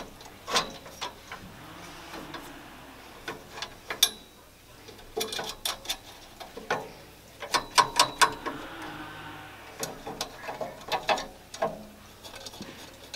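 Ratcheting hand tool clicking in short irregular runs, with sharp metal clicks, as the screws holding new Weber grill burner tubes are tightened. The quickest, loudest run of clicks comes about eight seconds in.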